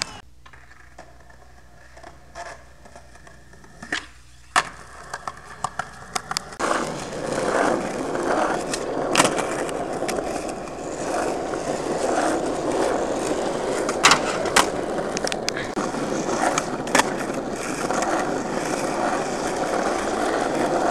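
Skateboard wheels rolling over rough asphalt: a steady rolling noise that sets in about six seconds in, with sharp clacks of the board scattered through. Before that, a quieter stretch with a few single clacks.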